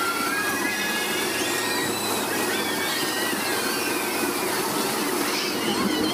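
Horror-train dark ride cars running along their track with a steady rattling rumble. High, wavering squeals come and go over the rumble.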